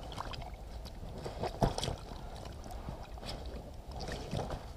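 Rustling and crinkling of a wet landing net and padded unhooking mat being handled, with irregular slaps and knocks as a common carp is lifted out onto the mat; the loudest knock comes about a second and a half in.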